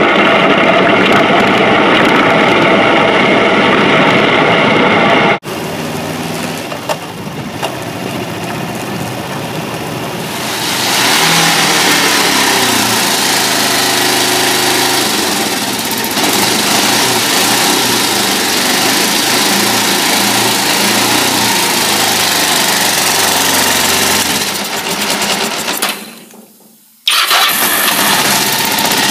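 Kawasaki Ninja 500 parallel-twin engine: first running on the move, then, after a sudden cut about five seconds in, the stripped-down bike's engine being started and run in the garage. About three seconds before the end the sound falls away almost to nothing, then comes back loudly.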